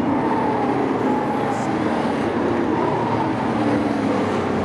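Several sport-truck race engines running together on the track, a steady drone with overlapping pitches that rise and fall slightly.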